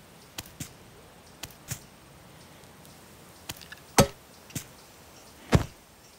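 Cartoon sound effects: a scattering of short, light knocks and taps at uneven intervals, with two louder knocks about four seconds in and near the end.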